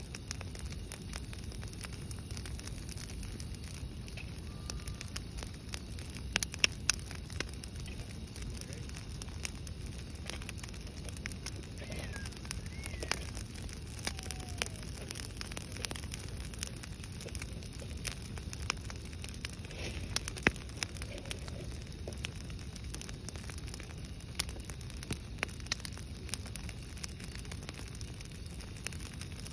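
Brush pile of dry branches burning: sharp crackles and pops all through, over a steady low rushing sound. The loudest pops come about six to seven seconds in and again about twenty seconds in.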